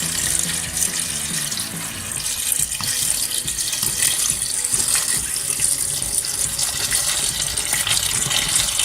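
Water running steadily into a pan to cover the pasta for cooking. It stops abruptly near the end.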